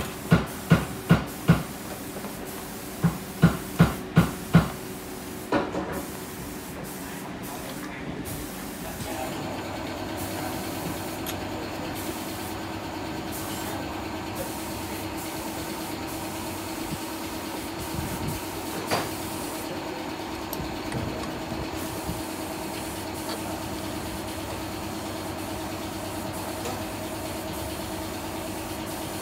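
A quick series of sharp knocks with a short ring, about three a second, during the first five seconds. Then from about nine seconds a steady mechanical hum with a constant pitch, like a small motor running.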